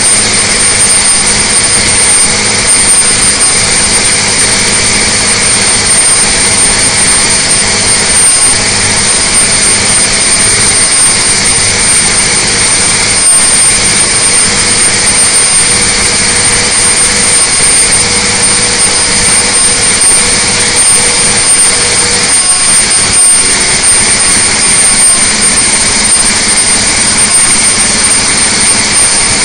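Detroit Diesel Series 60 inline-six turbodiesel running at full throttle under full dynamometer load, held steady at about 2,100 rpm. It makes a loud, even roar with a steady high whistle above it.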